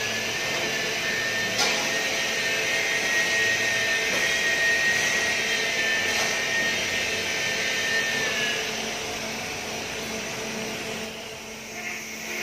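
Steady whining workshop machine noise, with a high whine that slides down slightly and stops about eight and a half seconds in, leaving a lower hum. A single sharp knock comes about a second and a half in.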